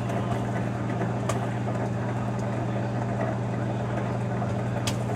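Microwave oven running with a steady electrical hum while heating a bag of microwave popcorn, with two short sharp clicks about a second in and near the end.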